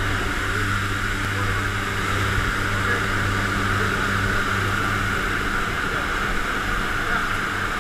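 Propeller plane's engine droning steadily, mixed with the rush of wind through the open jump door.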